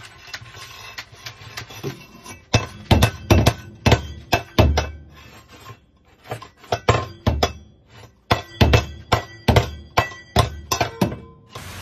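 A stainless-steel bowl clanking and scraping on a tub floor as an African grey parrot shoves and tips it with its beak. The sound is a dozen or more sharp clanks in irregular clusters, with a short lull about halfway through.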